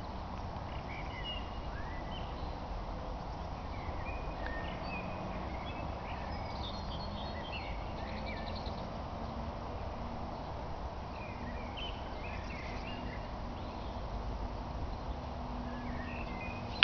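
Steady outdoor background with a low wind rumble, and faint, scattered chirps of small birds throughout.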